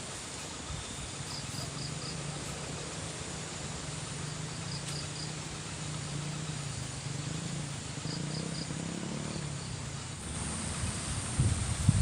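Outdoor insect sounds: short high chirps in groups of three or four, repeating every few seconds over a steady hiss and low hum. A few low thuds near the end.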